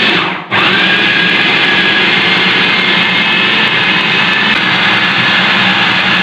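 Electric food processor (chopper) motor running at speed, its blades chopping raw beef mince with spices and herbs, with a steady whine. The sound dips for a moment just after the start, then runs evenly.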